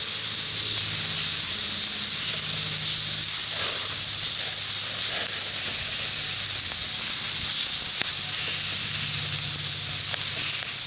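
Meat sizzling steadily on a thick 12 mm iron griddle plate over a campfire: a continuous high hiss of fat and juices frying.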